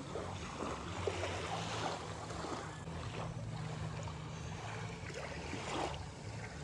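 Outdoor wind and water ambience at a riverbank: a steady low rumble of wind on the microphone over water washing at the shore.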